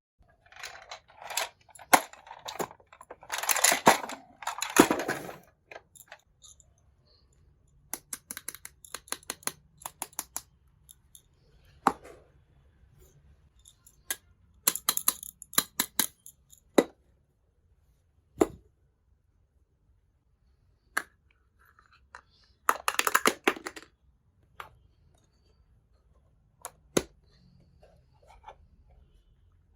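Small toy kitchen pieces being handled and set down during an unboxing: light clicks and clacks, runs of quick ticks, and several short spells of packaging rustle and crinkle, with quiet gaps between.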